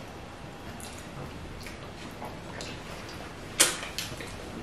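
Eating sounds: faint scattered clicks and smacks of chewing and of fingers working fufu and egusi soup on the plates, with one sharper, louder click about three and a half seconds in.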